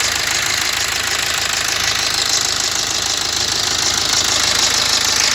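BMW X1 diesel engine idling steadily with its drive belt removed, free of the crank damper pulley noise. The mechanic takes this as the sign that the crankshaft damper pulley is faulty.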